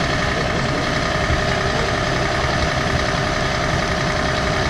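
Scania aerial-ladder fire truck's diesel engine idling steadily, with a constant whine on top.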